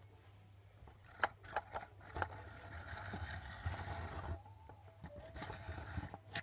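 A few light clicks, then a couple of seconds of scraping and rubbing, fading to softer scraping near the end: handling noise as an arm and sleeve brush over the phone's microphone.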